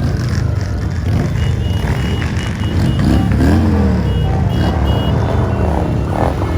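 Motor vehicles running with a heavy low rumble, over which short high-pitched electronic beeps sound about three times a second in two runs, with a pause between them. Partway through, an engine's pitch rises and falls once.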